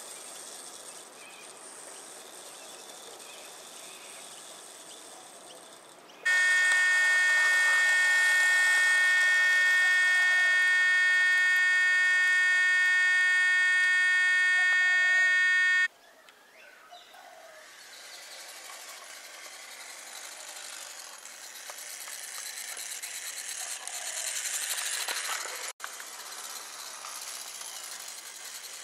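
1:24 scale model electric tram running on garden track, its gearing whirring and growing louder as it approaches near the end. Before that, for about ten seconds, a loud, steady high-pitched buzz starts and cuts off abruptly.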